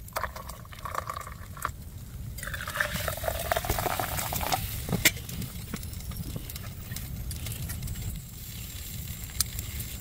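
Hot water poured from a kettle into a metal mug holding a tea bag, the pitch of the pour rising as the mug fills. A sharp knock comes about five seconds in, followed by light clicks of metal cups being handled.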